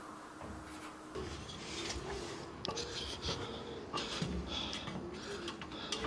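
Handling noise from a field recorder in a furry windshield being picked up off its tripod: irregular rubbing with several sharp clicks and knocks, starting about a second in.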